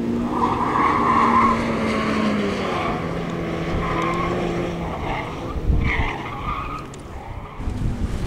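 Mitsubishi Lancer Evolution's turbocharged four-cylinder engine pulling hard, its pitch rising and falling with the throttle, while the tyres squeal through the turns of an autocross course. Wind gusts on the microphone near the end.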